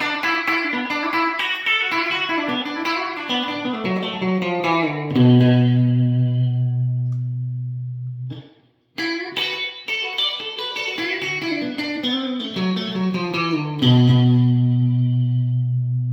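Electric guitar played with a clean tone: a 2007 Fender Highway One Telecaster with DiMarzio Twang King pickups, through a Peavey Classic 20 MH amp and Celestion Vintage 30 speakers. A run of picked notes descends to a low note left to ring for about three seconds, then stops. The same phrase is played again, ending in a low note left ringing near the end.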